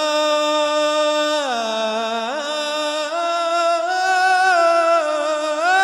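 A solo male voice singing an Arabic religious inshad, drawing out one long ornamented phrase: the held note sinks about one and a half seconds in, climbs back, then wavers through melismatic turns.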